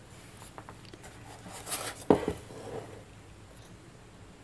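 Light handling noise of a hand-held cluster of Christmas ornament balls being moved and pressed into place, with a few small clicks and a short knock about two seconds in.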